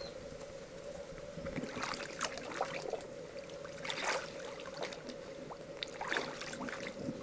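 Water sloshing and splashing, with scattered small clicks and a steady faint hum underneath; the splashes are strongest about two, four and six seconds in.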